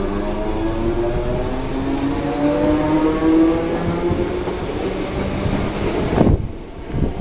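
Class 315 electric multiple unit pulling out of the platform, its traction equipment whining in several tones that rise steadily in pitch over a rumble of wheels as the train gathers speed. About six seconds in there is a sharp knock, and the sound briefly drops.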